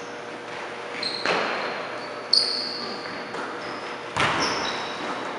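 Basketball game sounds in an echoing gym: a basketball bouncing off a hardwood floor with a few sharp thumps, the loudest about four seconds in, and sneakers squeaking on the floor in short high squeals.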